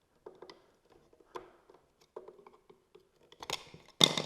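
Plastic seat cover being worked off by hand: small clicks and rustles as its push tabs are handled, then two sharp plastic knocks near the end, the second the loudest.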